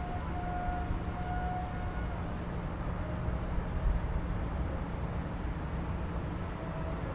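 Wind buffeting the microphone, with the faint thin whine of a radio-controlled model plane's motor in the air, shifting slightly in pitch as it comes and goes.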